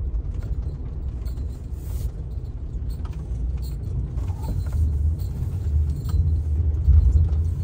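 Van engine and tyres rumbling, heard from inside the cab as it creeps over packed snow onto a snowbank to park. The rumble swells about five seconds in as it pushes up onto the bank.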